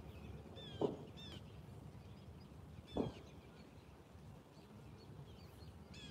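Birds calling over a low outdoor rumble: short calls that fall in pitch, the two loudest about a second in and about three seconds in, with fainter chirps between.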